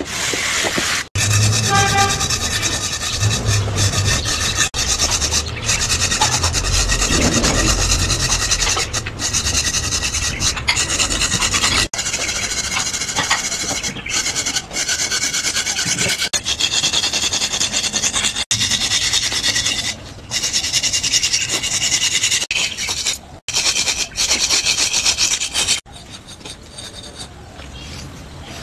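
Stick of drawing material scratching and rubbing on rough concrete as lines are drawn and shaded, in short stretches broken by many abrupt cuts, quieter near the end.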